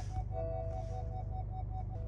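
Honda N-WGN parking sensor warning beeping rapidly, about five or six short beeps a second, warning of an obstacle close by while reversing. Longer, lower tones sound in between the beeps, over a low steady hum.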